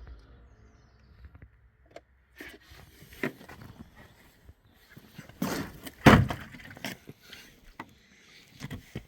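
Irregular clicks and knocks of parts and plastic clips being handled and fitted by hand during reassembly, the loudest two knocks coming about five and a half and six seconds in.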